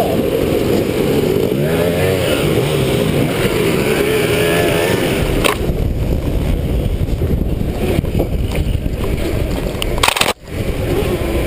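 A gas dirt bike's engine revving just ahead, its pitch rising and falling with the throttle for about five seconds, then fading. What remains is the rough rumble and rattle of the electric bike running over the dirt trail, with a few sharp knocks near the end.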